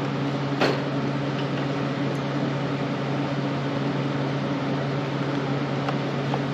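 Wire-feed welder switched on and waiting, its transformer and cooling fan giving a steady electrical hum, with one short click about half a second in.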